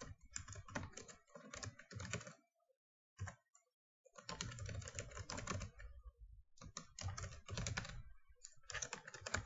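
Typing on a computer keyboard: bursts of quick keystrokes separated by short pauses, with a single keypress a little over three seconds in.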